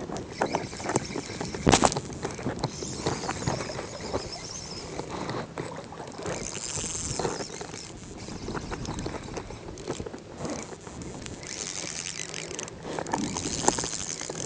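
Irregular water sloshing and splashing around a wading angler, with scattered knocks and rubbing from gear against the chest-mounted microphone.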